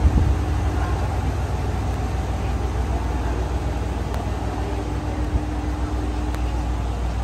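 Diesel engine of an ET122 railcar running as the train pulls slowly away along a platform: a steady low rumble with a faint hum over it.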